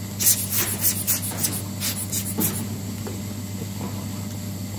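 Rubber bulb blower squeezed in quick short puffs of air, about four or five a second, blowing dust off the watch before it is cased. The puffs stop about two and a half seconds in.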